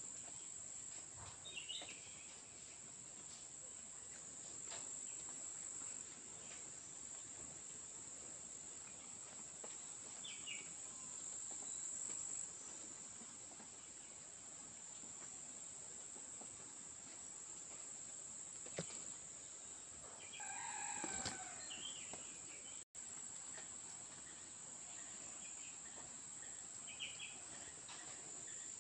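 Steady, high-pitched chorus of insects, with a few short bird chirps scattered through and a louder bird call about twenty seconds in. The sound drops out for an instant a little later.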